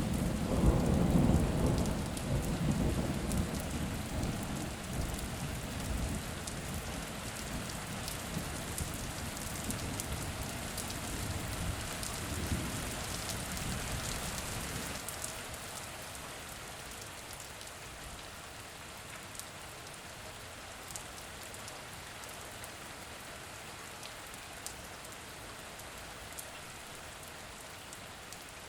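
Steady rain falling, with scattered drops, and a roll of thunder that breaks in suddenly at the start, loudest in the first couple of seconds, then rumbles and fades away over about fifteen seconds, leaving the rain alone.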